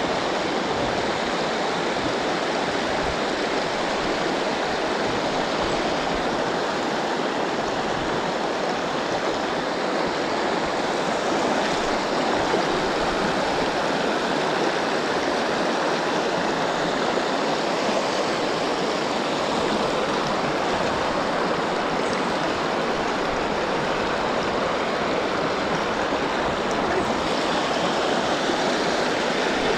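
River water rushing steadily, a constant even rush with no breaks.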